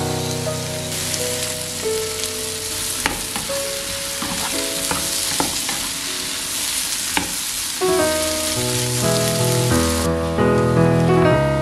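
Diced potatoes and zucchini frying in a nonstick pan, sizzling steadily, with a few sharp clicks of a spatula stirring through them. The sizzle drops away about ten seconds in, leaving soft piano music.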